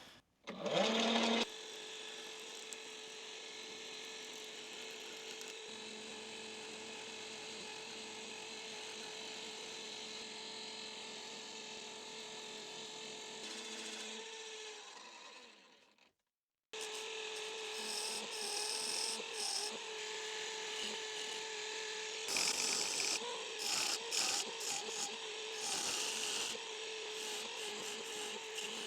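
Wood lathe running with a steady motor whine while a turning tool cuts an ebony screwdriver handle. The sound cuts out about sixteen seconds in and then resumes. In the second half, scraping of the tool against the wood comes and goes over the hum.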